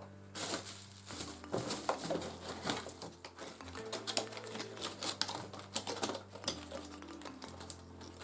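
Irregular plastic clicks and rattles from puzzle cubes and their packaging being handled, over soft background music.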